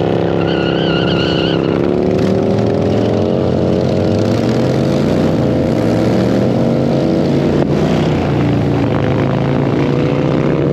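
Motorcycle engine running under way, its pitch slowly climbing as it pulls through a gear. A short, wavering high tone sounds for about a second near the start.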